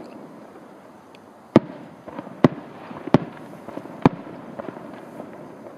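Four sharp cracks, about a second apart, over a faint outdoor hiss.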